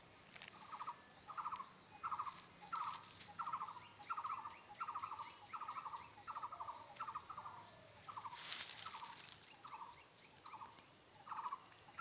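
Faint, steady series of short trilled calls from an animal, about two a second, each a quick run of pulses at the same pitch, with a brief rustle about eight and a half seconds in.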